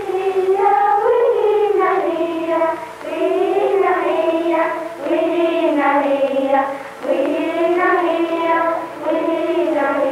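Children singing a slow melody, in long held phrases of a second or two each with short breaks between them.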